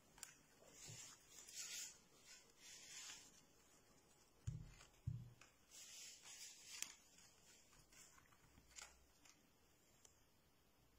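Paper flaps of a cut-out anatomy model rustling as a hand lifts and folds them back, with light clicks and two soft thumps near the middle.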